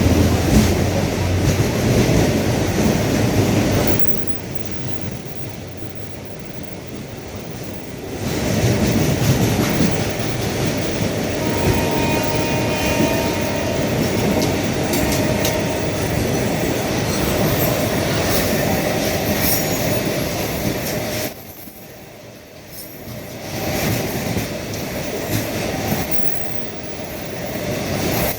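A train running along the track: a steady rumble of wheels on rail, with wheel squeal coming in as faint high tones around the middle. The noise eases off for a few seconds about four seconds in and drops again for a moment near the end.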